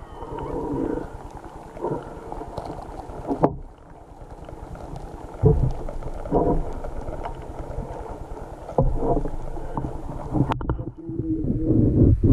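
Muffled low rumbling and sloshing of water, heard through a GoPro Hero 5's microphone while the camera is submerged in a container of water, with a few dull knocks and a sharp click near the end.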